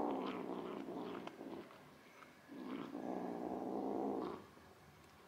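Kitten growling low over a mouse it has caught, guarding its prey: one growl trails off about a second and a half in, then a second steady growl of about two seconds follows.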